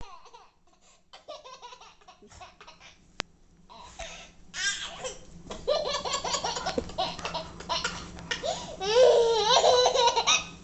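A baby laughing: faint, scattered giggles at first, then loud, continuous laughter from about four seconds in, loudest near the end. A single sharp click about three seconds in.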